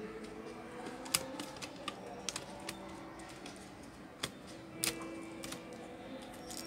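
Keys and plastic of a Lenovo S10 netbook keyboard clicking under fingers pressing across it as the newly fitted keyboard is seated, an irregular scattering of clicks with the sharpest about a second in and near five seconds.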